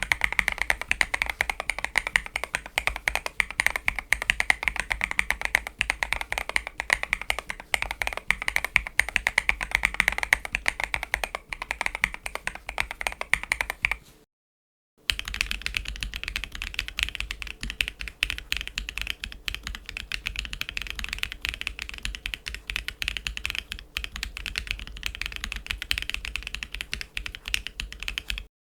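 Typing on a mechanical keyboard fitted with Leobog Interstellar tactile switches: fast, continuous keystroke clacks at a steady typing pace. About 14 seconds in, the sound cuts out briefly and the typing resumes on a second keyboard with a higher, brighter clack.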